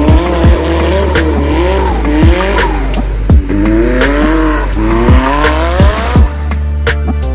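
Drift car engine revving up and down repeatedly as the car slides, with tyre squeal, until it drops out about six seconds in. Background music with a steady beat plays throughout.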